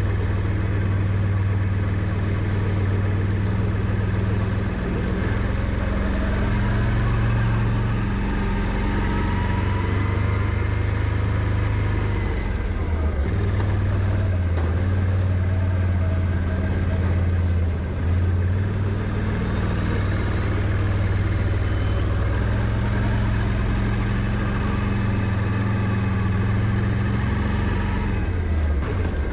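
Can-Am Outlander 650 ATV's V-twin engine running under load while plowing snow. Its pitch shifts up and down several times as the throttle changes, with a rising and falling whine over the engine note.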